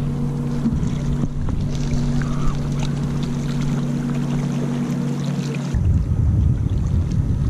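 Motorboat engine humming steadily on the lake. It cuts off abruptly about six seconds in, giving way to wind rumbling on the microphone.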